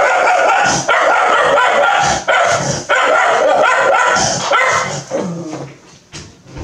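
A dog barking loudly and over and over, roughly once a second, the barks growing quieter and sparser near the end.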